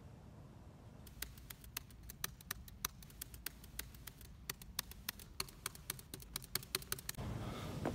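Typing on a computer keyboard: irregular sharp key clicks, several a second, starting about a second in and stopping near the end.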